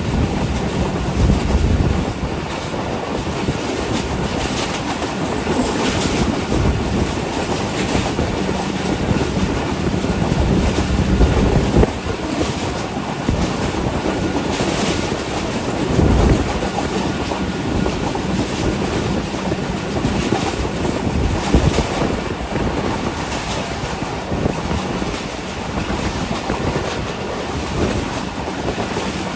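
Pakistan Railways passenger train running on the main line, heard from a coach window: a steady rumble of wheels on rails, with irregular clicks and knocks as the wheels cross the track.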